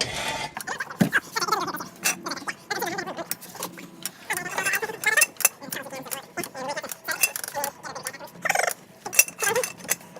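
Many small metallic clicks and clinks, like tools or metal parts being handled, with indistinct voices underneath.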